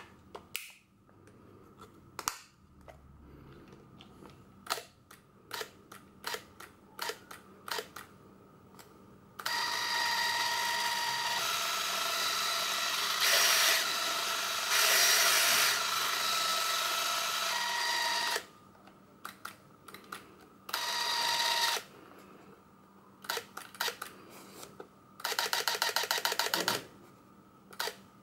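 Braun Nizo 561 Macro Super 8 camera being handled: sharp clicks from its door and controls, then its electric motor running with a steady whine for about nine seconds. The motor runs again briefly, and near the end there is a fast, even rattle for a second or two.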